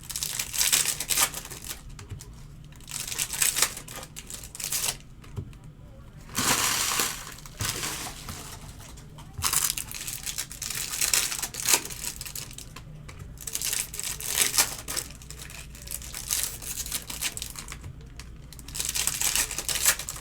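Foil wrappers of trading-card packs crinkling and tearing in repeated bursts as the packs are opened and handled.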